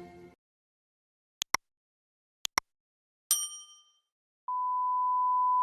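The tail of background music fades out. Two quick pairs of sharp clicks follow, then a single bright ding that rings out and dies away within a second. Near the end a steady, pure electronic beep tone starts and holds.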